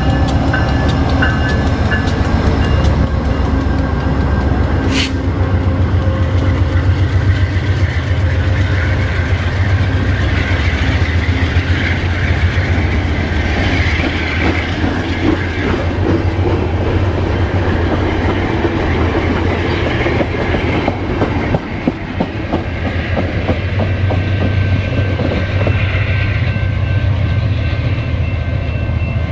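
VIA Rail passenger train running close past: the GE P42DC diesel locomotive's engine at first, then a long string of stainless-steel passenger cars rolling by, with a steady heavy rumble and wheels clacking over the rail joints. One sharp click comes about five seconds in.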